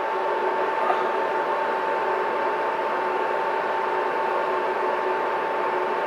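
Steady machine hum with a constant high whine that does not change.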